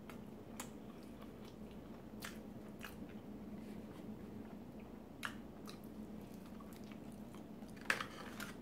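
A person chewing food close to the microphone: faint wet mouth clicks and smacks, with a sharper click a little past halfway and another near the end.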